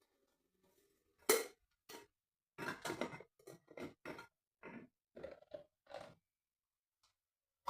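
Household objects being handled and set down: a sharp knock about a second in, then a quick run of short clatters and knocks, then a pause.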